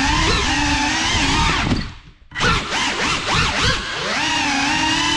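Cinewhoop FPV drone's brushless motors and ducted propellers whining at a steady pitch, then nearly cutting out for a moment about two seconds in. Several quick throttle bursts follow, rising and falling in pitch, before the whine settles back to steady.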